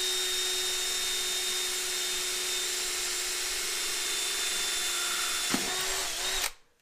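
Cordless drill running at a steady, high speed, its bit working through the metal backing behind a dishwasher's panel front. The pitch holds even throughout, with one brief click about five and a half seconds in, and the drill stops just before the end.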